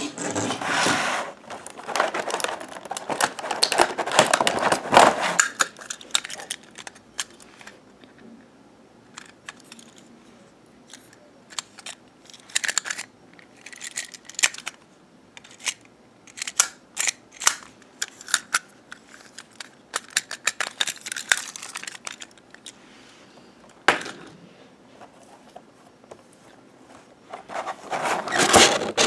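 Hands handling toy pieces and their packaging: a stretch of rustling during the first five seconds, then scattered clicks and taps, with more rustling near the end.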